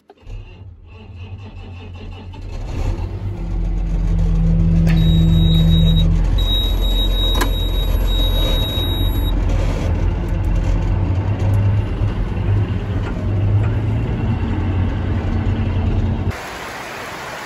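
A large diesel farm tractor's engine starting and running steadily, heard from inside its cab. A high electronic warning tone beeps on and off for a few seconds after it starts.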